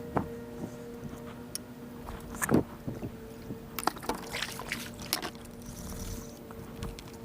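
Kayak paddling: scattered knocks of the paddle against the kayak hull and water sounds, the loudest knock about two and a half seconds in, over a steady faint hum.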